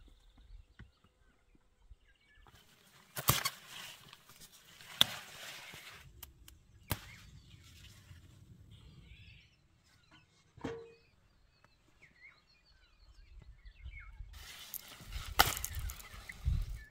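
Eggplant leaves rustling and stems snapping as eggplants are pulled off the plants by hand, in two bursts with several sharp cracks.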